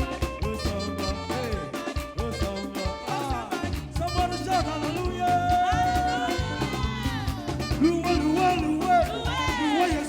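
Live band playing upbeat African praise music: a steady drum beat and bass under a gliding lead melody.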